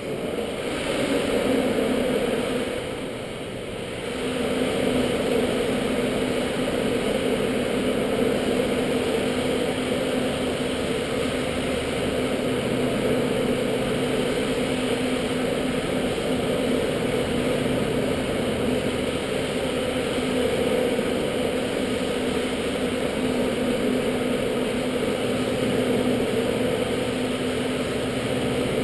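Observatory dome shutter drive running as the shutter slides open: a steady mechanical hum with a constant tone. It dips briefly about three seconds in, then picks up again and runs evenly.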